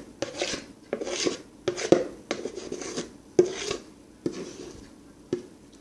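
A spoon scraping cake batter out of a mixing bowl: a run of short scraping strokes that come more sparsely and faintly toward the end.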